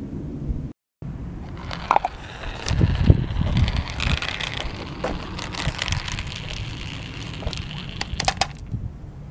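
Small marbles rolling down an orange plastic Hot Wheels track, a steady rolling rattle with many sharp clicks as they knock against the track and each other. It is loudest about three seconds in and ends with a quick cluster of clicks.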